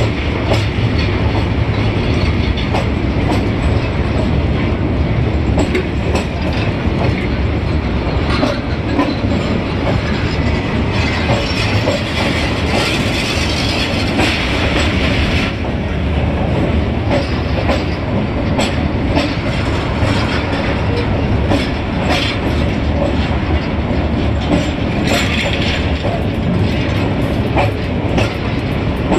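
Passenger train running across a steel truss railway bridge: a steady wheel rumble with rapid clickety-clack of wheels over the rail joints. A hiss swells for a few seconds in the middle and again near the end.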